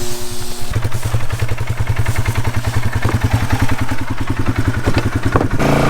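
An engine running with a rapid, even pulse, which sets in strongly about a second in and shifts in tone near the end.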